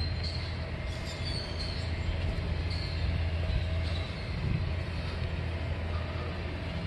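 A vehicle running steadily with a low rumble, with a few faint high-pitched squeals in the first few seconds.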